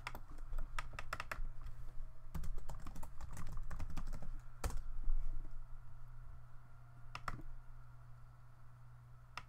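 Computer keyboard typing in quick bursts over the first five seconds, then two more clicks about seven seconds in, over a steady low hum.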